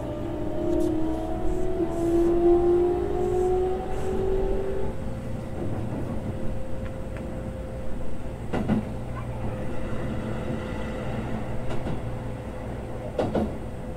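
Keikyu 600 series electric train heard from inside the car while running. Its motor whine rises in pitch as the train accelerates and fades out about five seconds in. After that comes a steady running rumble with wheel knocks over rail joints, once near the middle and twice near the end.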